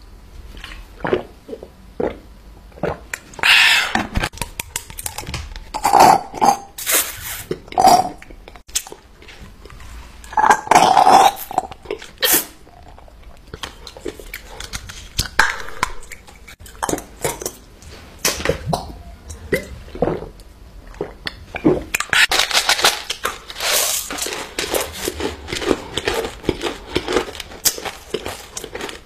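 Loud eating and drinking sounds from a person gulping, chewing and burping several times, followed by a longer crackly stretch, like a wrapper or packaging being handled, about two thirds of the way through.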